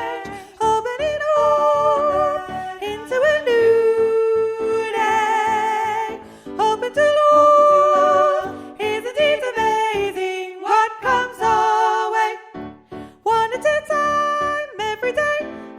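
Choir arrangement with singing: voices hold notes with vibrato over a steady, rhythmic accompaniment, with brief breaks between phrases.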